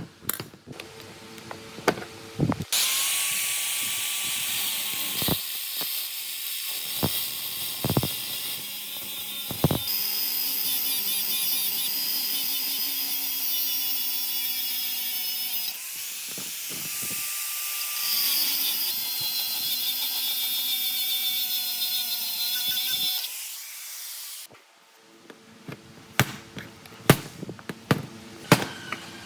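A handheld electric power tool runs for about twenty seconds with a loud hiss, its motor pitch dipping and recovering a few times as it is loaded, with clicks and knocks of handling before it starts and after it stops.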